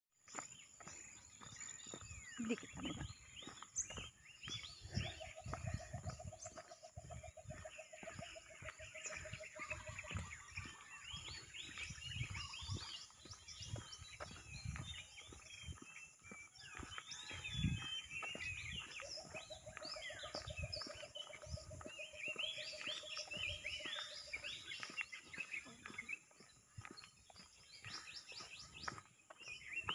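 Many birds chirping and twittering at once, with a low, rapid trill held for about five seconds twice, starting about five seconds in and again near twenty. Low thumps of wind or handling noise on the microphone come and go.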